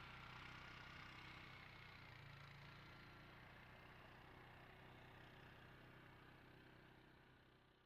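Utility ATV's four-stroke engine running faintly and steadily, fading out near the end.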